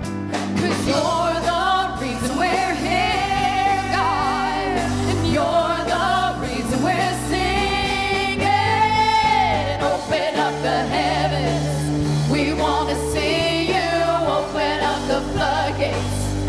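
Live worship music: voices singing a contemporary praise song with long held, sliding notes over a steady band accompaniment with bass.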